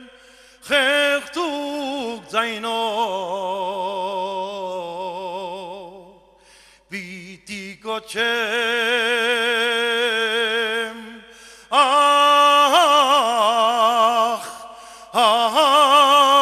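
A male singer performing an Armenian patriotic song in long held phrases with wide vibrato. He breaks off briefly between phrases, with the longest pause about six seconds in.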